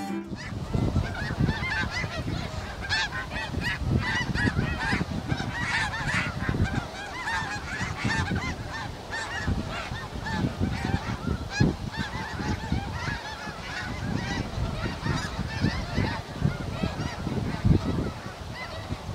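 A large flock of snow geese calling together: a dense, continuous chorus of overlapping short honks, over a low, uneven rumble.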